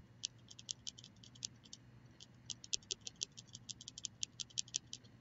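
Computer mouse scroll wheel clicking faintly in quick, uneven runs as the page is scrolled down, over a low steady hum.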